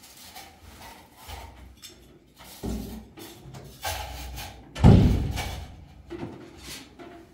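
Knocks and clatter of kitchen things being handled and packed, with one heavy thump about five seconds in, the loudest sound.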